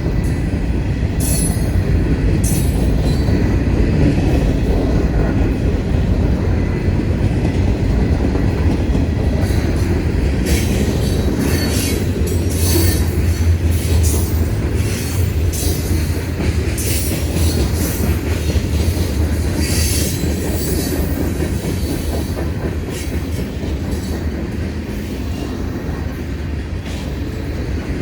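Freight train cars rolling past over the grade crossing: a continuous low rumble of wheels on rail with repeated clicks and short high-pitched wheel squeals, easing slightly near the end.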